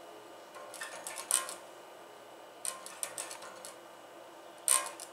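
Red electric bass guitar's strings heard acoustically, without the amplified sound: finger plucks and strings snapping against the frets as a faint run of clicky notes in short clusters, the sharpest pluck near the end.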